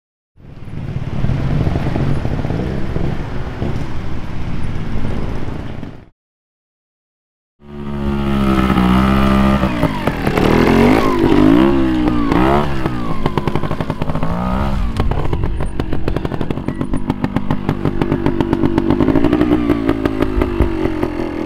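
Trials motorcycle engine revving in repeated short throttle blips, its pitch rising and falling, with some clatter as it climbs over rocks. The sound is broken by two brief silences near the start.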